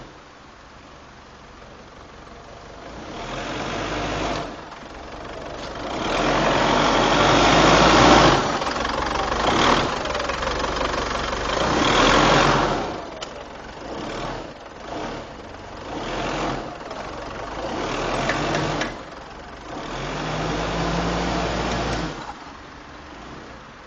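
Mitsubishi L200 pickup's engine pulling the truck in several surges of revs, with drops back between them, as it is driven in reverse in four-wheel drive, the condition in which the owner hears a knock from the drivetrain.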